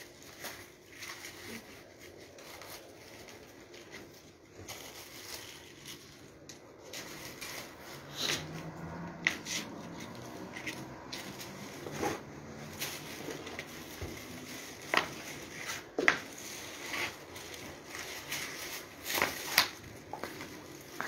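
Stacks of kites being handled and laid on top of one another: rustling and crinkling of the kite sheets, with several sharp clicks and taps in the second half as the kite frames knock together.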